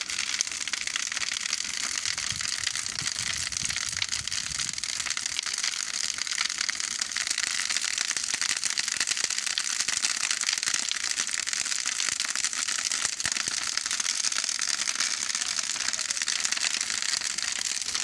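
Large wood bonfire burning with a steady, dense crackling of burning wood.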